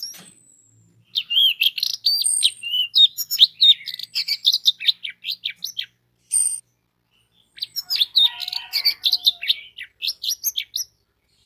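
Orange-headed thrush singing: two long runs of rapid, varied whistled notes with a short pause between them.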